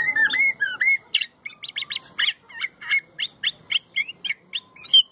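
Caged thrasher (cuitlacoche) singing: a fast, varied run of loud whistled and chirped notes, several a second, some rising and some falling in pitch.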